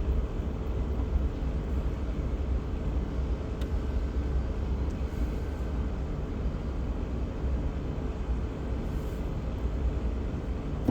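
Steady low running rumble of the CAT 242D3 skid steer's diesel engine, even throughout with no change in speed.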